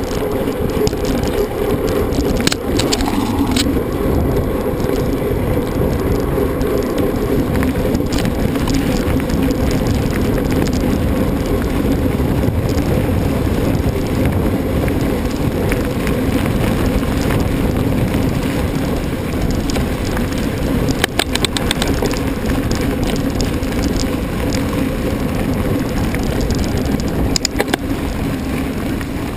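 Mountain bike ridden at race pace on a trail: steady rolling noise with the bike rattling over the ground, and a few sharp clatters, about two and a half seconds in, around two-thirds of the way through and near the end.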